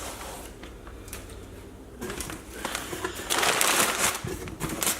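Packaging being handled: crinkling and rustling that starts about two seconds in and grows loudest near the middle, after a couple of quieter seconds with light clicks.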